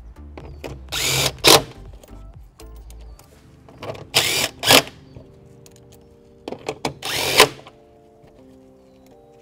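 Cordless power driver running bolts down into the battery tray, in three runs of about a second each. Each run ends in a short, louder burst. Background music plays throughout.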